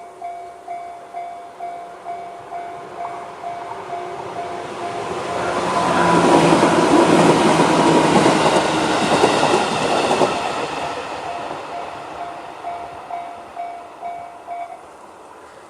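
Japanese railway level crossing alarm sounding the JR standard electronic bell, about two strokes a second, while a JR 211 series electric train passes through, its noise swelling and fading in the middle. The bell stops near the end as the train clears the crossing.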